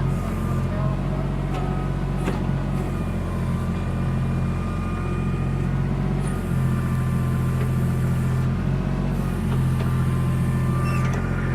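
Backhoe engine running steadily under work, a little louder from about six and a half seconds in.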